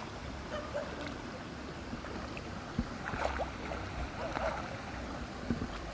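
Water sloshing and splashing as a French bulldog wades through a shallow pond, with a few sharper splashes about three seconds in, again around four and a half seconds and once near the end, over a steady low rumble.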